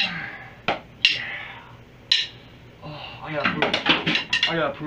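Drumsticks clicked together in a count-off: four sharp wooden clicks at uneven spacing over the first two seconds, then a man's voice from about three seconds in.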